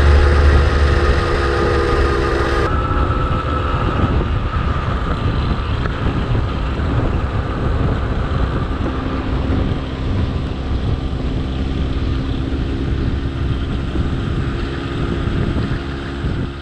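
Moped engine running at road speed, with wind on the microphone. The sound changes abruptly about three seconds in, where a set of steady tones drops out.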